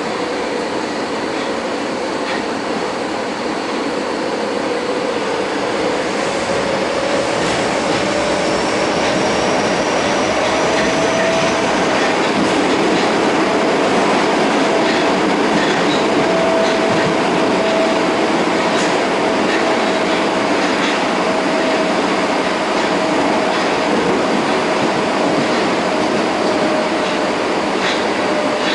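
An Osaka Metro 22 series subway train heard from inside the car while running: a steady rumble of wheels on rail under the whine of its Hitachi GTO-VVVF traction inverter and motors. The whine rises a little in pitch over the first ten seconds or so, then holds steady.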